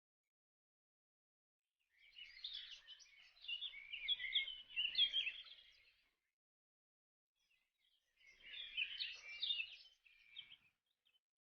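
Birds chirping in two bursts of rapid, high, twittering notes: one about two seconds in lasting some four seconds, and a shorter one near the end.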